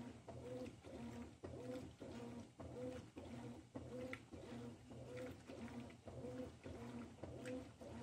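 Consul 13 kg top-load washing machine agitating a soaked queen-size comforter: the motor hums in short, even strokes, a little under two a second, as the agitator swings back and forth through the water.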